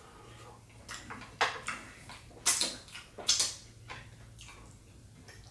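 Close-up eating sounds of a man chewing soul food: a few sharp, loud smacks and clicks of the mouth, about a second apart, over soft chewing.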